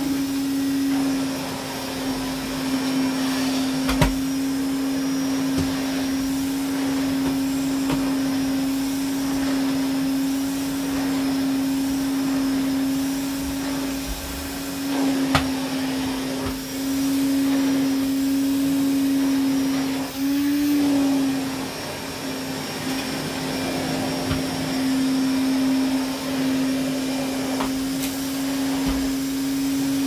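Hoover Constellation 867a canister vacuum cleaner running steadily while vacuuming carpet, its motor giving a constant hum with one strong tone. A few sharp knocks sound over it, and the motor pitch briefly rises a little past two-thirds of the way through.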